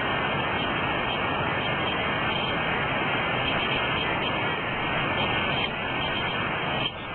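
A creek's rushing water, a steady loud hiss of flowing water that eases slightly near the end.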